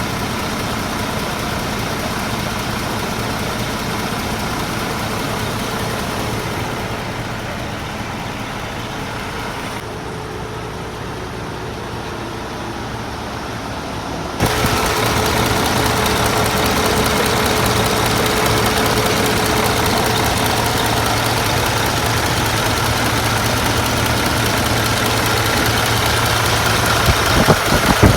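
MAN TGA 26.480 truck's inline-six diesel engine idling steadily; about halfway through the sound suddenly gets louder and stays louder.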